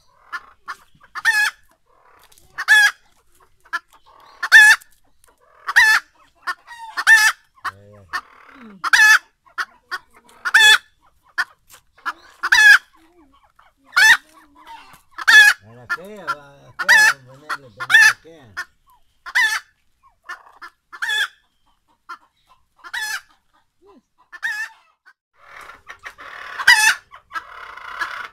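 Farmyard fowl, chickens and a chachalaca squaring off, calling loudly in short calls about every one and a half seconds, with a short scuffling noise near the end.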